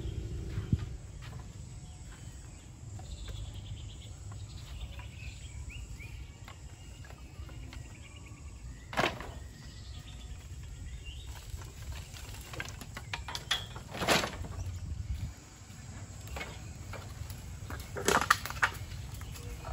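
Outdoor rural ambience: a steady low rumble with birds chirping now and then, and a few sharp knocks, one about halfway through, another a few seconds later, and a double knock near the end.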